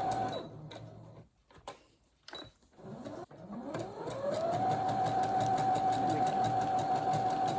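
Brother embroidery-capable sewing machine working a decorative diamond stitch over a hole in denim. Its motor winds down and stops about half a second in, a few clicks sound in a pause of about three seconds, then the motor spins up with a rising whine about three seconds in and runs steadily, the needle ticking rapidly.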